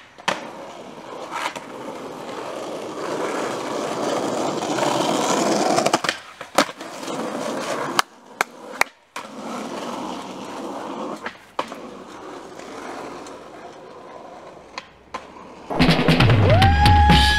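Skateboard wheels rolling on asphalt, broken by several sharp cracks of tail pops and board landings. Near the end comes a loud, long shout.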